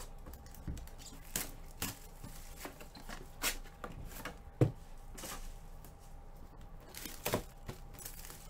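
Sealed trading card boxes being handled and set down on a table: scattered taps and knocks, the sharpest about halfway through.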